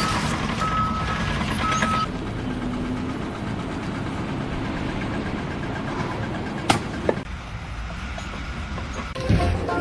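Heavy machinery running with a steady low rumble, two short beeps in the first two seconds and two sharp knocks about seven seconds in.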